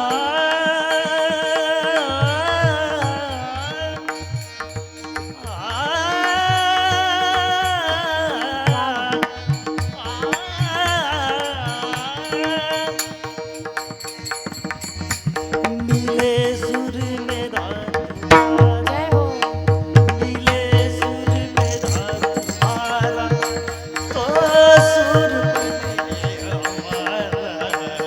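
Marathi devotional kirtan music: a woman singing long, held melodic phrases over a steady drone, with a hand drum keeping a continuous beat.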